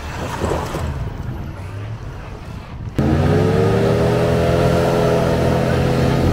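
A pickup engine running at low revs as it crawls over snow, then, after an abrupt cut about three seconds in, a Jeep Grand Cherokee's engine revved hard and held high with its tyres spinning in deep snow. The pitch climbs and then holds steady.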